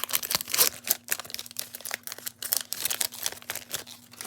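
Foil trading-card booster pack wrapper crinkling and tearing as it is handled open, a rapid irregular run of small crackles.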